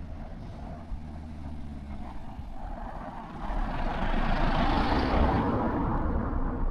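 A motor vehicle passing close by on the road: low engine hum, then engine and tyre noise swelling to a peak about five seconds in and starting to fade near the end.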